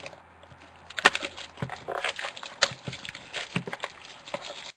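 Trading cards and their packaging being handled: an irregular string of small clicks, taps and rustles.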